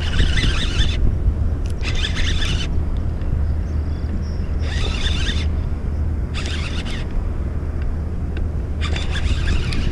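Baitcasting reel whirring in five short bursts of about a second each as a hooked catfish is reeled in, over a steady low rumble of rushing spillway water.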